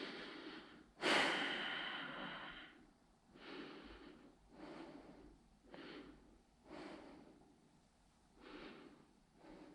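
A person breathing close to the microphone: a long, louder exhale about a second in, then a run of shorter breaths about a second apart.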